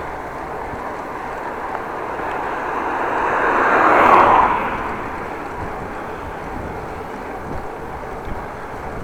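A vehicle passing close by: a rush of noise that swells to a peak about four seconds in and fades within a second, over steady wind and road noise.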